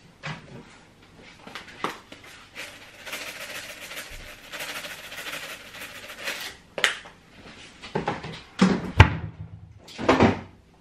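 A jar of chilli flakes worked over toast for a few seconds, a dry rasping rattle, followed by several knocks and clunks of things being handled and put down on a worktop, the loudest near the end.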